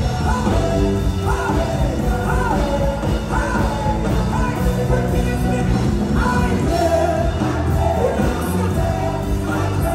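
Gospel song sung by women into microphones over instrumental accompaniment, with long sung notes that bend up and down.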